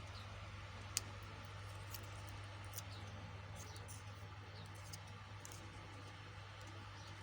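Scattered small clicks and taps of handling, one sharper click about a second in, over a steady low hum.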